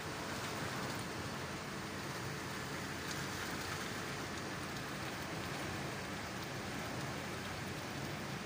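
Heavy typhoon rain falling steadily, heard from behind a rain-streaked window.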